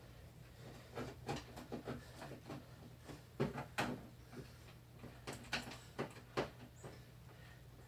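Irregular light clicks and knocks of hands and a tool working on the plastic case of an electronic keyboard being taken apart, loudest through the middle, over a steady low hum.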